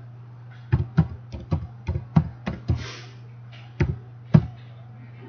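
Keystrokes on a computer keyboard: about ten separate key clicks, most in quick pairs as single digits are typed, each followed by the Enter key. A steady low hum runs underneath.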